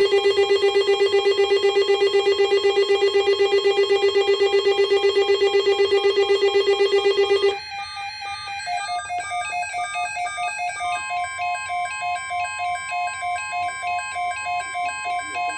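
Synthesized electronic tones: a loud, rapidly pulsing buzzy tone for about seven and a half seconds, then a stepping sequence of bleeping tones that change pitch, joined by a steady higher tone a few seconds later.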